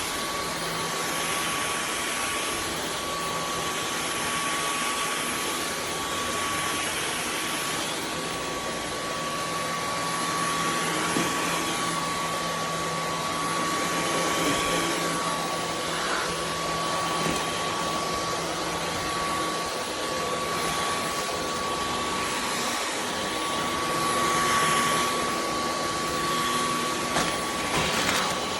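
Dyson V15 Detect cordless stick vacuum running steadily, with a high whine over the rush of air, its level swelling slightly now and then.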